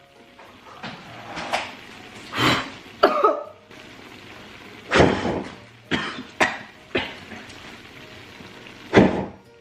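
A woman coughing and clearing her throat in a string of short, sharp bursts, about nine over several seconds, some in quick pairs: a fit brought on by the burning chili she is eating.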